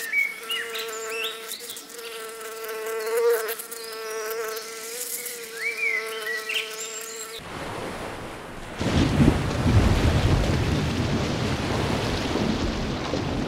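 Honeybee buzzing steadily as it hovers, with high chirps above it. About seven seconds in, this gives way abruptly to the rush of ocean waves and wind.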